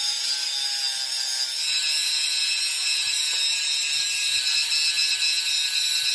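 Power tool cutting metal: a steady hiss with several high whining tones, which change pitch about a second and a half in.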